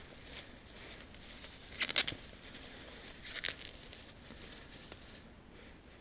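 Two short crunching rustles, one about two seconds in and a weaker one about a second and a half later: handling noise from a person moving and handling things.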